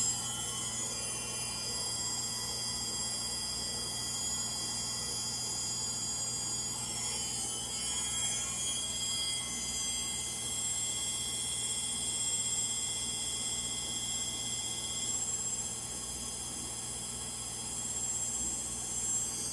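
Frigidaire Gallery front-load washer (model GLTF1670AS1) running in its final spin: a steady hum under several high-pitched whines that drift slightly in pitch, which the owner puts down to bad motor bearings.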